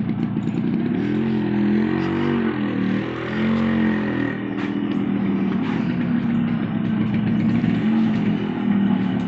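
Yamaha RX100 two-stroke single-cylinder motorcycle engine running, revved up and down a few times in the first half and then held at a steady speed.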